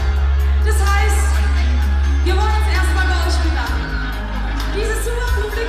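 Live party band playing loud amplified music, with a singer over a deep bass line and drums.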